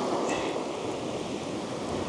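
Surf washing on a shingle beach, with wind noise on the microphone.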